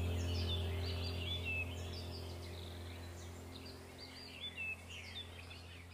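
Birds chirping and twittering in quick short calls over a low steady hum, the whole fading out gradually.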